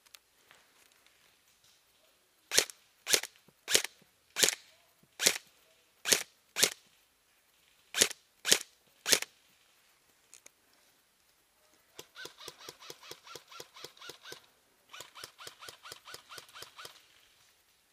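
Airsoft guns firing: a string of about eleven sharp single shots, roughly half a second to a second apart, followed near the end by two quieter full-auto bursts of rapid clicks, each about two seconds long.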